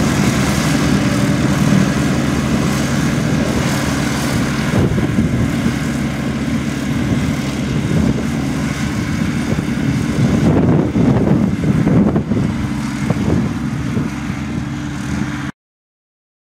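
Compact tractor engine running steadily while mowing grass with its mower deck, a constant low drone. It cuts off suddenly near the end.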